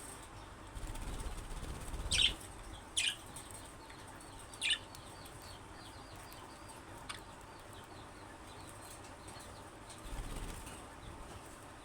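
Budgerigars calling: three short, sharp squawks in the first five seconds, followed by a run of faint, rapid chirps. A low rustle comes twice, near the start and near the end.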